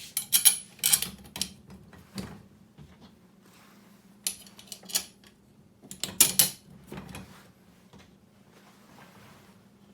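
Metal clinking and clattering as screws, nuts and the serving cart's metal parts are handled and fitted by hand, in short clusters of sharp clicks that die down to faint ticks after about seven seconds.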